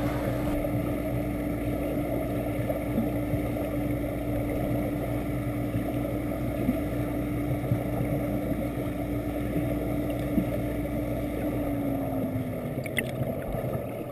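Riverflow counter-current swim jet heard underwater: a steady rush of pumped water with a steady motor hum under it. About twelve seconds in the hum slides down in pitch and the deepest rumble fades.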